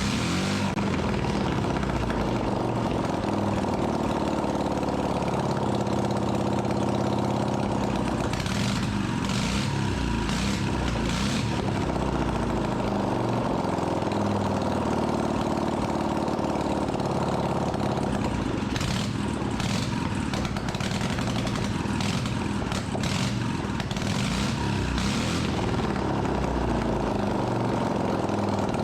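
Freshly rebuilt Dnepr air-cooled flat-twin motorcycle engine running on its first run, its pitch rising and falling as it is revved.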